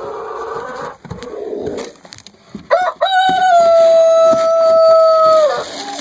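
Rooster crowing close by: a couple of short notes about two and a half seconds in, then one long held note that drops away at its end. Before the crow, chickens clucking.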